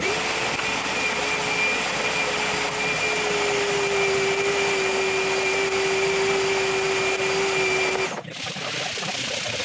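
Electric motor running steadily with a whine that drops slightly in pitch about three seconds in, then cuts off suddenly about eight seconds in.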